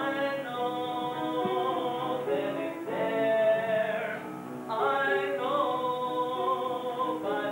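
A young man singing a musical-theatre song solo, holding long notes.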